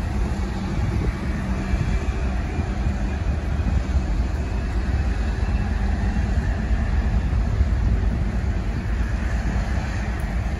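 Class 56 diesel-electric locomotive running under power at crawling speed, its sixteen-cylinder Ruston-Paxman engine giving a steady low rumble as it pulls away.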